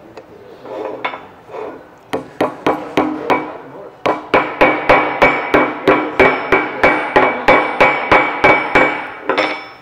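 Ball-peen hammer tapping a lip seal's metal case into the bore of a pump bearing housing cover. Each metal-on-metal tap rings. A few quick taps start about two seconds in, then after a short pause comes a steady run of taps, about three or four a second, working around the seal until near the end.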